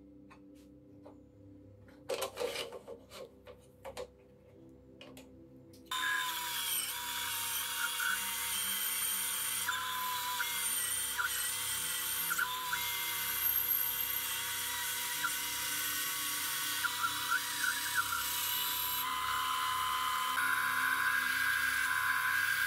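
A few light clicks and knocks as the rip fence is set, then about six seconds in the 350 W FABTEC BS 250 benchtop bandsaw switches on and its motor and blade run steadily with a mix of steady whining tones. Near the end the sound changes as a wooden board is fed into the blade.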